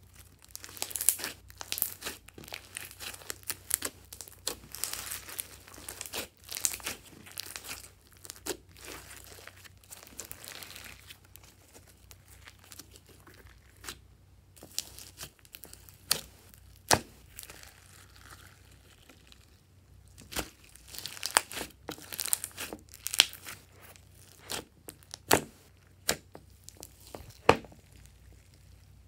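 Glossy slime being stirred, squeezed and stretched, giving wet crackling and sharp clicks. There are dense runs of crackling in the first ten seconds and a quieter stretch about halfway. Then come separate sharp clicks and more crackling bursts.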